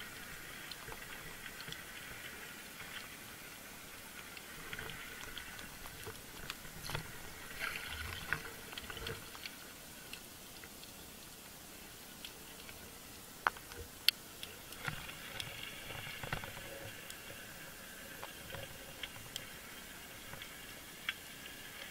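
Underwater ambience picked up by a camera mounted on a speargun: a steady hiss with many scattered small crackles and clicks, and two sharper clicks about halfway through.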